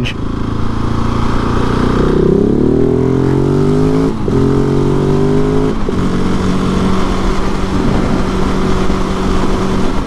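Husqvarna 701 Supermoto's big single-cylinder engine accelerating: its pitch climbs through the gears with two short breaks for upshifts, about four and six seconds in, then settles to a steady cruise. Wind rushes over the helmet camera throughout.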